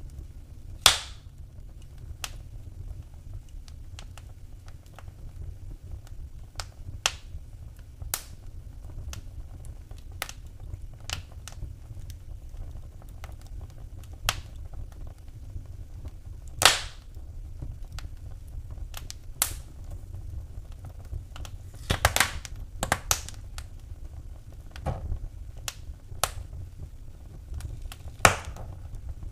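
Wood fire in a fireplace crackling: irregular sharp snaps and pops, a few of them much louder, over a steady low rumble of the burning fire.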